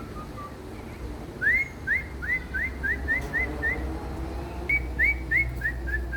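Red-legged seriema calling: bouts of short yelping notes, each sliding sharply upward, the series slowly stepping down in pitch. One bout starts about a second and a half in, another begins near the end.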